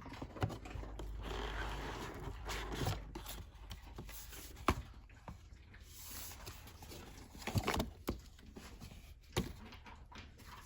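Cardboard advent-calendar compartment being opened and its contents handled: a rustling, scraping stretch for the first few seconds, then scattered sharp clicks and taps.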